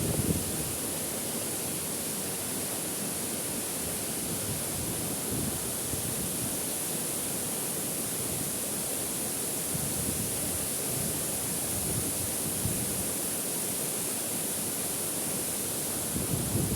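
Waterfall with a steady, unbroken rush of falling water.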